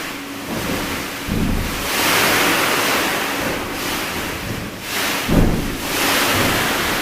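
Fireworks launching from the rooftop launch boxes overhead, heard from inside the room below: a continuous rushing noise that swells and ebbs, with two deep booms, one just over a second in and one about five seconds in.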